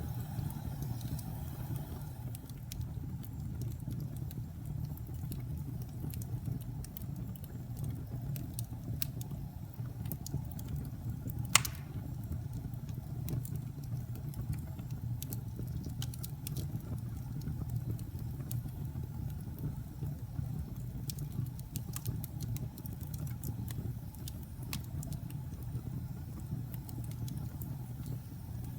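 Wood fire burning: a steady low rumble of flames with scattered small crackles, and one sharp pop about halfway through.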